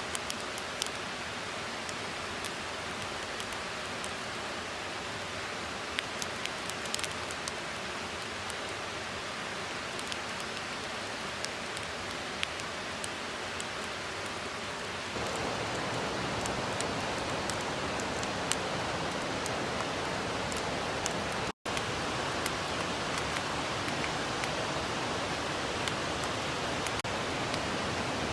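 Steady rush of a mountain stream, with scattered small sharp clicks in the first half. About halfway through it steps up louder and fuller, and it drops out for a split second a little later.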